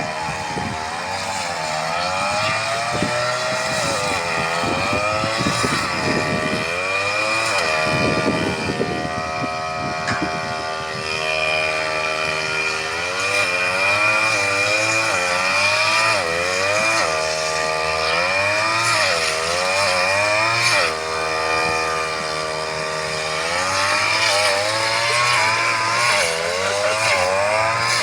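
Two-stroke brush cutter engine running hard, its pitch rising and falling over and over as the throttle is worked and the blade takes up load in the grass. A rough crackling stretch runs through the first ten seconds or so.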